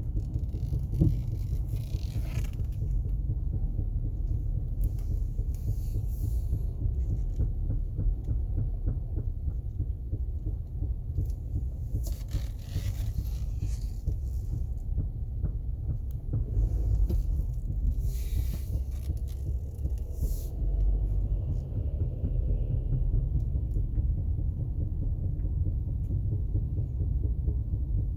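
Low, steady rumble of a 2019 Honda CR-V on the move, with a single sharp knock about a second in and occasional bursts of hiss.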